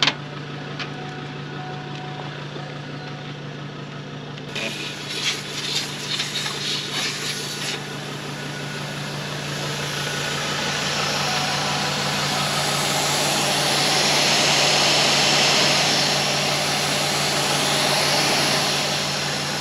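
Air hissing out of a 4WD tyre through a screw-on tyre deflator, building up and staying loud through the second half as the tyre is let down towards its preset pressure (20 psi front, 25 psi rear) for a rocky, sandy track. A steady engine hum runs underneath, with irregular clicks and rustling of footsteps in dry leaf litter about a quarter of the way in.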